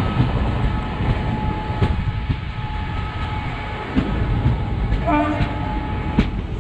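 Indian Railways passenger coach running at speed, heard from an open coach door: a steady low rumble of wheels on rail with scattered clicks over rail joints and rushing air. A brief pitched tone sounds about five seconds in.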